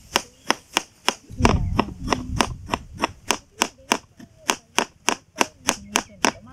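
Kitchen knife shredding a cabbage on a wooden chopping board: a steady run of sharp chops, about three or four a second. A brief low rumble comes about a second and a half in.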